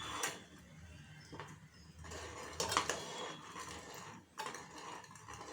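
A spoon stirring tea in a pan of water, clinking against the pan a few times.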